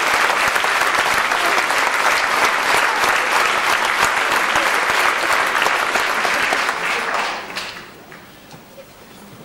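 Audience applauding, a dense patter of many hands clapping that dies away quickly about seven and a half seconds in.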